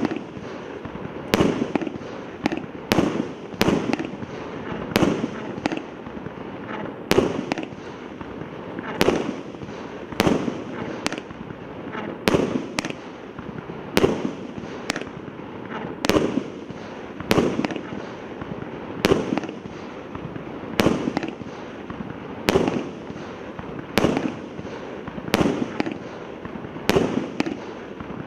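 LDC601 300-shot consumer fireworks cake firing shot after shot, about one burst a second, with a steady crackle of sparks between the bangs.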